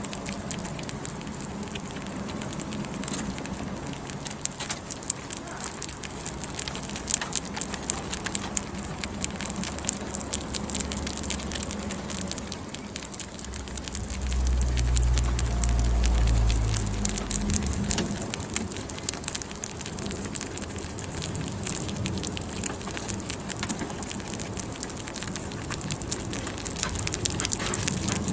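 Baby rabbits chewing a peeled banana close to the microphone: a dense, steady crackle of small clicks, with a low rumble for a few seconds around the middle.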